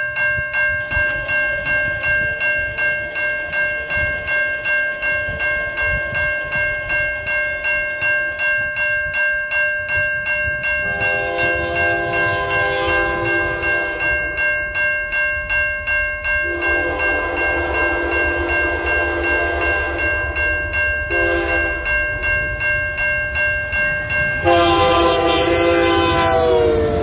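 Grade-crossing warning bell ringing steadily about twice a second, joined by a diesel locomotive's horn chord sounding the crossing signal: long, long, short, then a final long blast that drops in pitch as the locomotive passes close by. The loud rush of the passing locomotive and its wheels comes in with that last blast.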